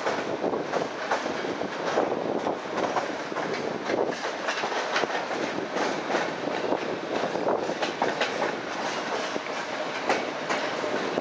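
Electric suburban train (elektrichka) running along the track: a steady rolling rumble of wheels on rail, with frequent sharp clacks as the wheels pass over rail joints and switches.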